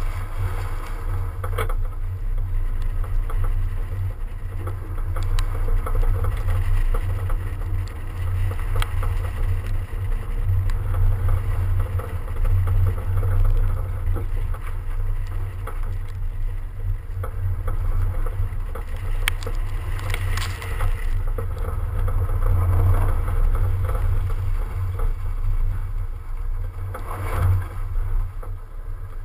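BMW 335d driving on packed snow, heard from a camera mounted outside on its flank: a steady heavy low rumble of wind buffeting the microphone mixed with tyre and road noise, with two brief louder rushes about two-thirds through and near the end.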